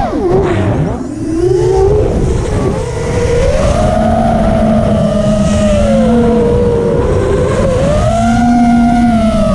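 FPV racing quadcopter's electric motors and propellers whining from the onboard camera's microphone, over a heavy rush of wind and prop wash. The pitch drops steeply in the first second as the throttle is chopped, then climbs and sags repeatedly with throttle changes through the low pass.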